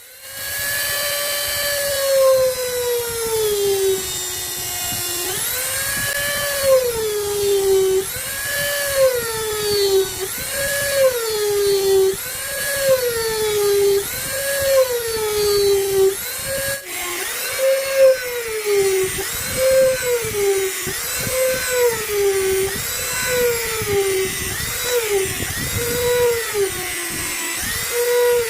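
Wood lathe at work on a wooden bowl: a steady whine that rises and falls in pitch about once a second.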